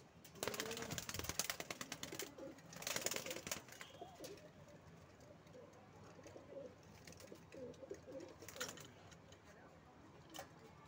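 Madrasi pigeons cooing, with low rising-and-falling coos. Two loud bursts of rapid clattering come in the first few seconds and a shorter one later.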